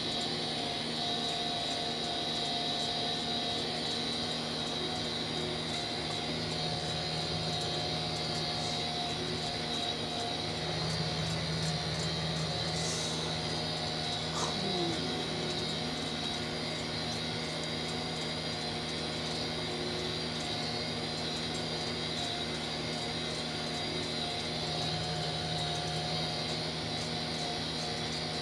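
Tractor engine running steadily while pulling a grass tedder, a constant drone with a brief high hiss about halfway through.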